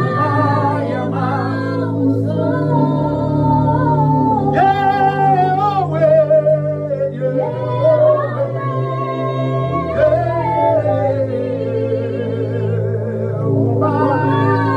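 Slow worship singing: a voice sings a drawn-out melody with wavering held notes and no clear words, over sustained backing chords that change every few seconds.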